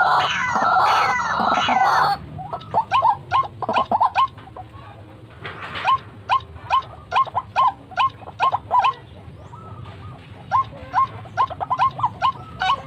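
White-breasted waterhen calling: a loud, harsh chorus of calls for the first two seconds, then long runs of short, repeated 'wok' notes, several a second, in bouts with brief pauses.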